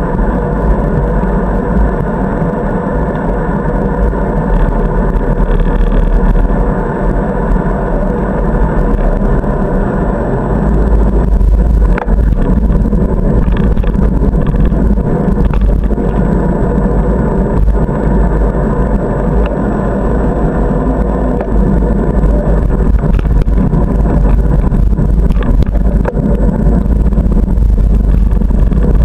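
Steady rumble of wind on the microphone and tyre noise from a bicycle riding along paved paths, with a few light clicks and rattles.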